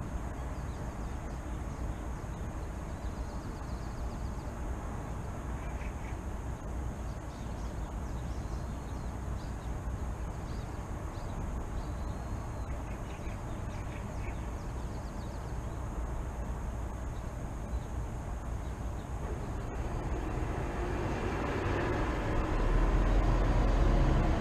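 Steady city traffic rumble with small birds chirping faintly over it, then a vehicle growing louder with a deep rumble near the end.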